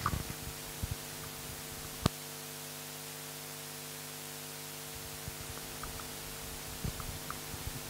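Steady electrical hum and hiss of an open microphone line, with one sharp click about two seconds in and a few faint ticks.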